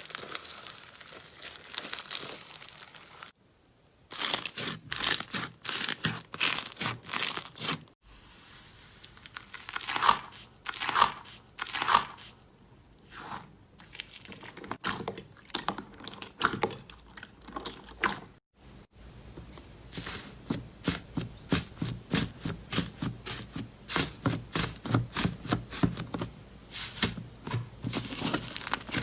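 Slime being squeezed, poked and stretched by hand, making runs of sticky clicks, pops and crackles. It is several short clips cut together, each breaking off suddenly.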